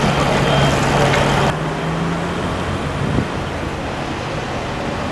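Road traffic with a vehicle engine running as a steady low hum. About a second and a half in, the hum and much of the hiss cut off abruptly, leaving quieter traffic noise.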